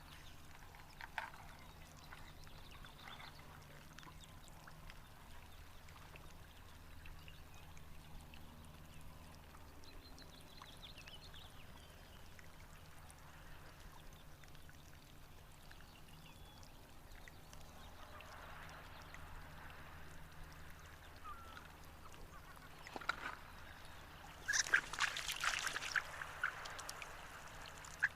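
Duck calling: short, high, thin calls, sparse at first and then a quick cluster of louder ones near the end.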